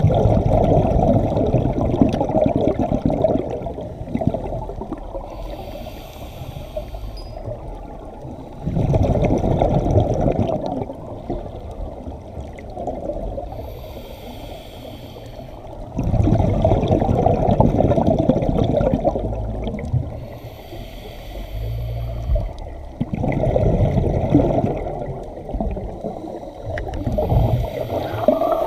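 Scuba diver breathing through a regulator: a short hiss on each inhale, then a long rumbling burst of exhaust bubbles on each exhale, in a slow steady rhythm of about four breaths.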